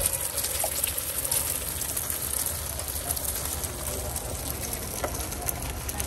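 Beaten eggs frying on a hot flat griddle, sizzling and crackling steadily.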